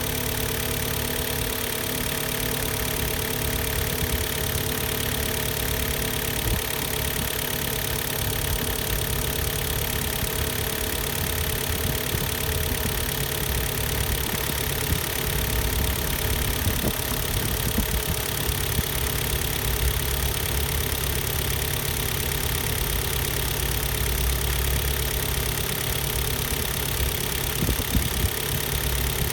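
Hyundai/Kia G4KD 2.0-litre inline-four petrol engine idling steadily while warming up.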